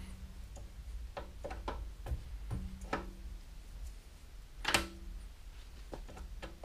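Scattered light clicks and knocks from the cast-iron apron and handles of a 1941 South Bend lathe as it is wiped down with a rag. The loudest knock comes a little under five seconds in, and a low steady hum runs underneath.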